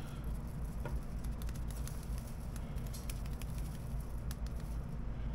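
Seasoning shaken from a small shaker bottle onto chicken wings, a light pattering with scattered small ticks over a steady low hum.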